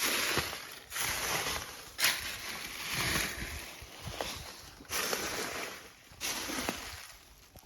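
Footsteps crunching and scraping on loose rock and gravel, about one step a second with a short pause in the middle.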